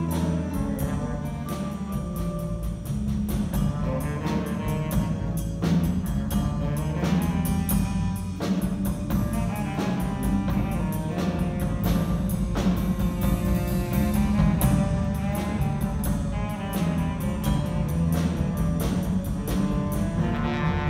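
Live band music: a drum kit keeping a steady beat under keyboard, electric guitar and a heavy low bass line. A horn section of saxophones, trumpet and trombone swells in right at the end.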